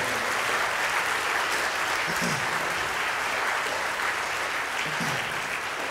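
Congregation applauding steadily, the clapping easing off slowly towards the end, with a brief voice or two underneath.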